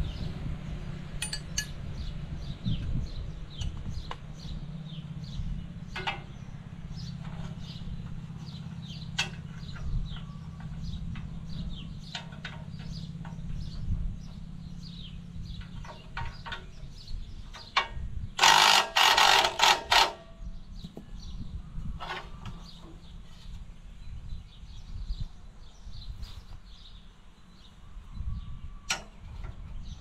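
Wrench and hand tools clinking and knocking on the rusty nuts and steel shanks of a tractor-mounted cultivator, as bolts are loosened to straighten the bent shanks. About two-thirds of the way through comes a short run of several loud metal strikes close together, over a steady low hum.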